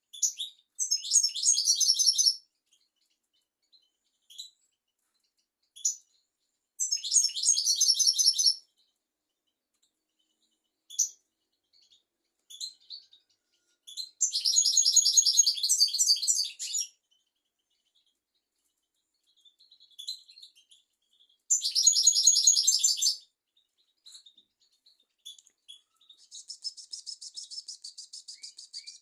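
European goldfinch singing: four bursts of rapid, high twittering, each a second or two long, with short single call notes between them, and an even, rapid trill near the end.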